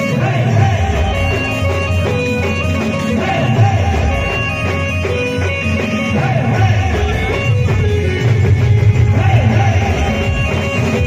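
Adivasi-style ringtone music: a melody of held notes over a heavy, pulsing bass line, playing without a break.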